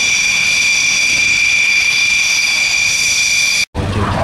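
Fighter jet taxiing, its engine giving a steady high-pitched whine. Near the end it cuts abruptly to the broader rumble of a jet aircraft in flight.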